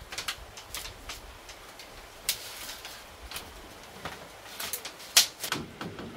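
Split bamboo strips clicking and knocking against a woven bamboo lattice as it is handled, in irregular sharp taps, with a short rustling scrape a little after two seconds and the loudest knock about five seconds in.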